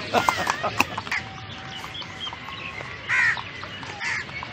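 Birds calling outdoors: a loud, harsh call about three seconds in and another near the end, with a few sharp clicks in the first second.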